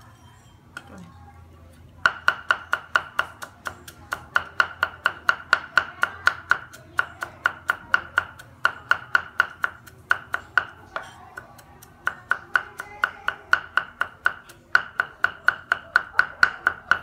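Steel cleaver rapidly mincing garlic on a round wooden chopping block, about five strokes a second in runs with short pauses, each stroke ringing briefly. The chopping starts about two seconds in.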